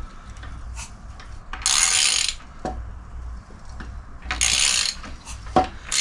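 Ratchet wrench clicking in two short bursts, about two and a half seconds apart, as the crankshaft of a VW T25's 1.9 water-cooled flat-four is turned over by hand, with a couple of light clicks between.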